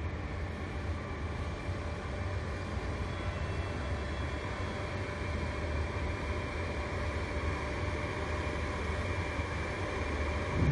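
WDS 580 BGA rework station running a heating cycle: a steady hum and rush of air from its hot-air heater blowers and cooling fans.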